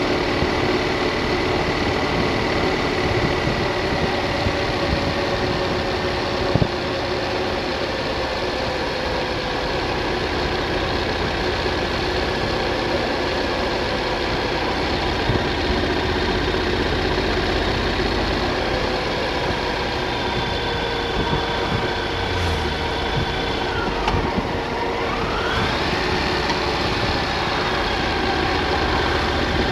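Triumph Thunderbird motorcycle engine running steadily while riding, under a constant rush of road and wind noise. About three-quarters of the way through, the engine note drops as the bike slows, then climbs again as it pulls away.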